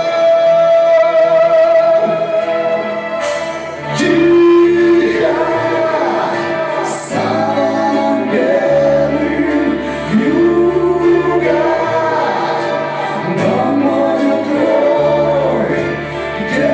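A live band plays a slow pop ballad while singers hold long, wavering sung notes, with backing voices singing together like a choir.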